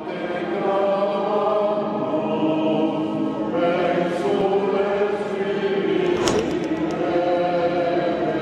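Choral music: a choir singing long, sustained chords in a chant-like style.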